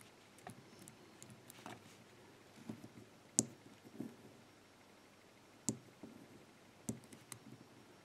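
Faint, irregular clicks of a combination padlock's number wheels being stepped round while a thin feeler gauge probes the inner wheels to feel for the flat part that gives away the code. The sharpest click comes about three and a half seconds in, with two more a little before six and seven seconds.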